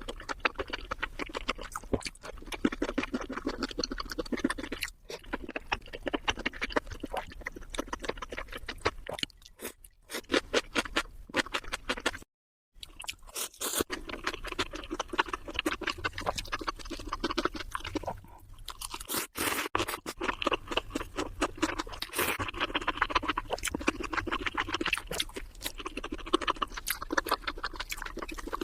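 Close-miked mukbang eating sounds played sped up: rapid crunchy chewing with a dense run of mouth clicks and crackles. About 12 seconds in, the sound drops out to silence for a moment.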